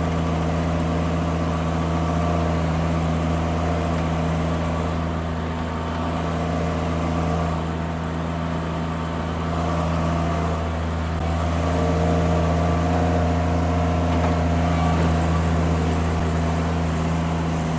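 Mini skid steer engine running steadily under light load as the machine reverses, its bucket in float mode dragging along the ground to level the soil.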